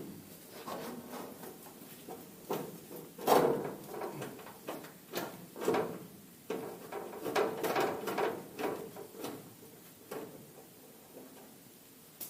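Irregular clicks, knocks and short scrapes of hand-tool work on a DKW Schnellaster van's side door as the window winder's last screw is taken out and the winder worked loose. The loudest knock comes about three seconds in.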